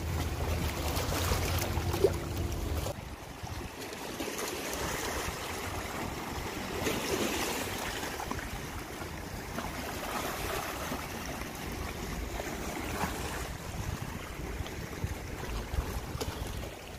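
Small waves lapping and splashing against shoreline rocks, with wind buffeting the microphone. A low steady hum sits under the water for about the first three seconds and then cuts off.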